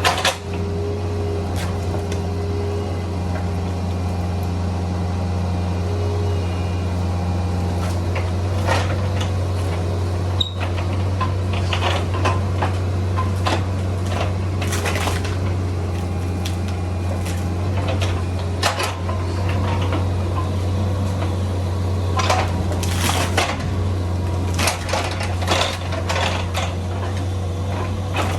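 Bobcat 341D mini excavator's diesel engine running steadily under work. Irregular clanks and knocks cut through it as the machine digs at a stump, most often about halfway through and again near the end.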